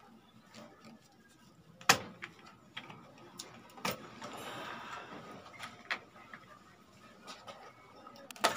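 Clicks, knocks and scraping as a stereo amplifier's volume-control board is worked loose behind its front panel. A sharp click about two seconds in is the loudest. Another click near four seconds is followed by a second of rubbing and scraping, and there is one more click near the end.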